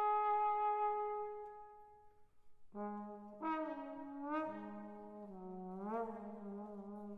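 Solo trombone: a long held note fades away, then after a short pause comes a phrase of notes joined by slide glides, swelling near the end.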